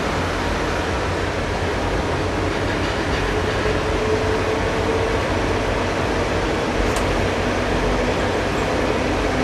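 KiHa 20 diesel railcar under way, heard from on board: steady diesel engine drone with wheel and rail running noise, a faint tone swelling briefly near the middle, and one sharp click about seven seconds in.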